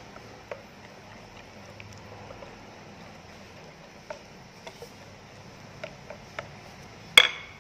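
Wire whisk stirring thin cake batter in a glass bowl: soft stirring with a few faint ticks, and one sharp clink about seven seconds in.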